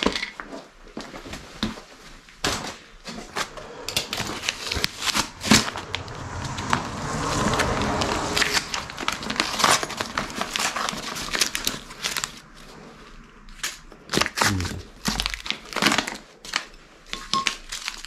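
Packaging being unwrapped by hand: a plastic bag crinkling and paper packing tearing, with scattered small clicks and rustles, busiest in the middle.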